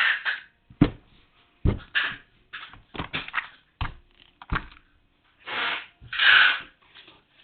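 Packaging being handled as a parcel is unboxed: several short bursts of rustling and scraping, with sharp knocks and clicks of items and cardboard being set down and moved.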